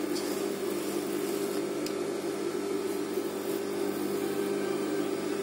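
A steady low mechanical hum that holds the same pitch and level throughout, with a couple of faint ticks near the start.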